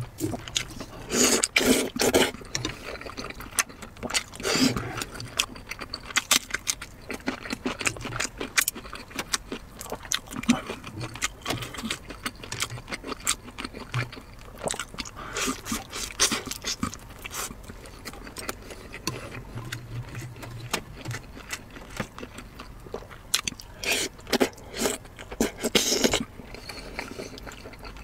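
Close-miked mouth sounds of a person eating soft braised pork belly: wet chewing, sucking and lip smacks in irregular runs, loudest about a second in and again near the end.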